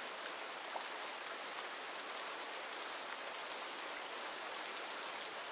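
Steady rain falling in a forest, an even hiss of many drops with a few faint separate drop ticks.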